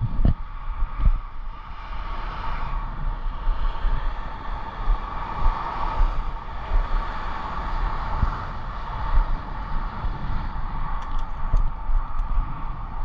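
Wind buffeting the microphone of a head-mounted GoPro on a moving e-bike, a gusty low rumble over a steady mid-pitched whir of the ride that swells in the middle. A few faint light ticks near the end.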